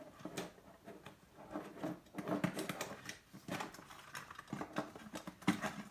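Small plastic and metal parts of a car radio display unit clicking, scraping and rattling in irregular, quick handling sounds as it is taken apart by hand.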